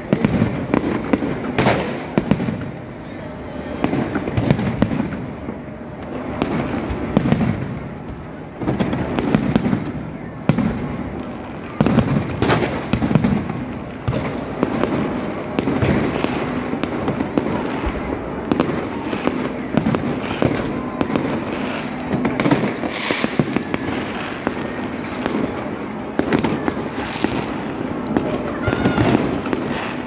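Fireworks going off overhead in many irregular bangs and crackles, one after another, over the voices of a large crowd.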